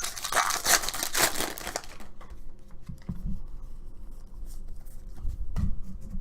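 A baseball card pack's wrapper being torn open and crinkled for about the first two seconds, then quieter handling of the cards with a few soft taps and clicks.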